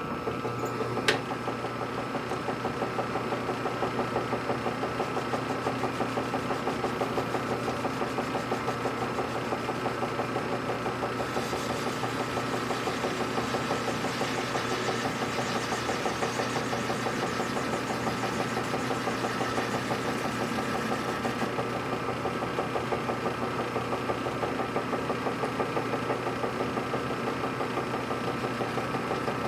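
Metal lathe running steadily with its four-jaw chuck spinning, a machine hum with a fast rhythmic flutter and a constant whine, while the tool takes a test cut on the turned part. A faint hiss joins in for several seconds midway.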